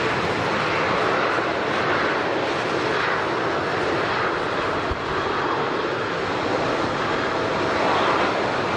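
Airliner engines running, a steady loud rush of noise that holds level throughout.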